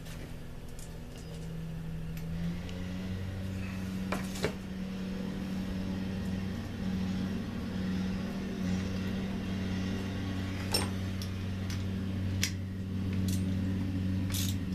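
A steady low mechanical hum that steps up slightly in pitch about two seconds in, with a few short sharp clicks of small metal parts being handled.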